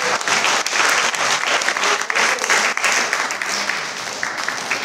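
A roomful of people applauding after a speech, the clapping easing off somewhat near the end.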